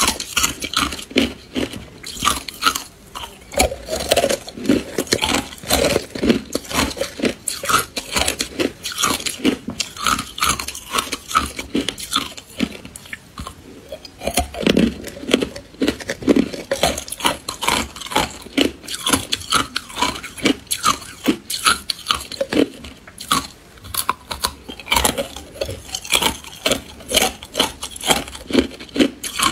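Frozen matcha ice being bitten and chewed, a dense, continuous run of crisp cracks and crunches.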